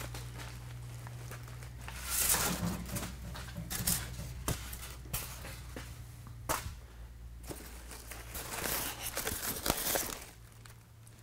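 Crumpled brown packing paper rustling and crinkling as it is pulled out of a cardboard shipping box, with a few sharp clicks.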